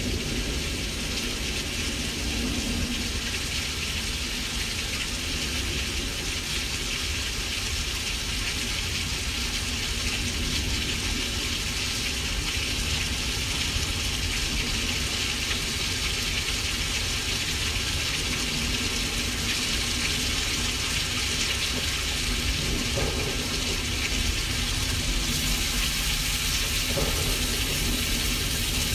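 Simulated thunderstorm: a steady, rain-like hiss with a continuous low rumble underneath.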